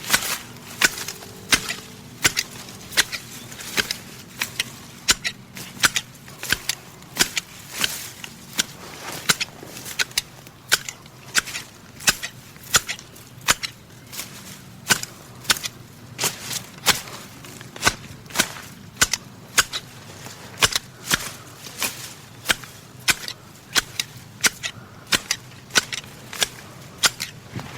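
Grass shears cutting grass, the blades closing in a steady run of sharp snips, about two a second.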